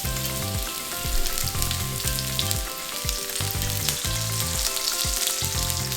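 Green onion pieces frying steadily in vegetable oil in a pan over medium heat, a continuous sizzle with fine crackling, with soft background music underneath.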